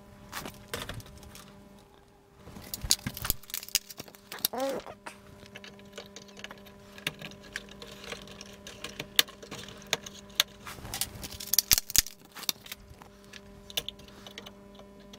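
Irregular plastic clicks and rattles of DDR3 RAM sticks being handled and pressed into a desktop motherboard's memory slots, the slot latches snapping shut. A faint steady hum runs underneath.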